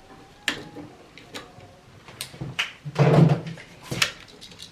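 Small clicks and knocks from wires and hand tools being handled at a dryer outlet's terminals, with a louder clatter about three seconds in.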